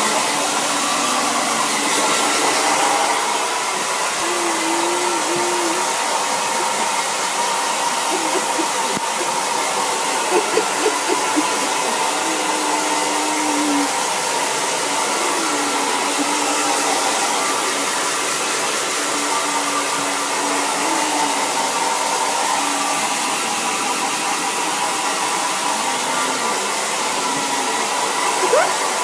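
Handheld hair dryer blowing steadily throughout, its motor hum wavering in pitch now and then. A few brief louder sounds stand out about ten seconds in.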